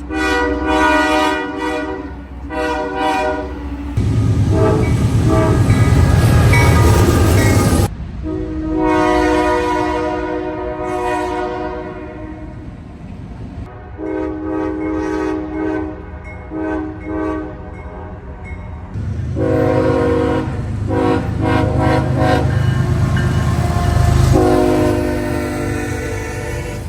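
Diesel locomotive air horns sounding a multi-note chord in repeated blasts: a run of short toots, then longer held blasts. In stretches the horn is half-buried under loud noise and low rumble from the passing train. The sound changes abruptly several times, as from clip to clip.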